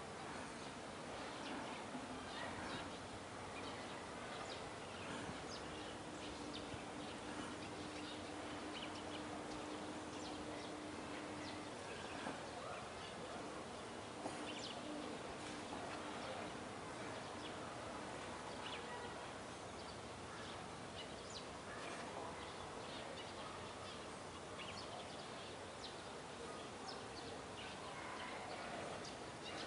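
Outdoor park ambience: a steady background hiss with many short, high bird chirps scattered through it. A low steady hum starts about five seconds in and lasts several seconds, then returns briefly later.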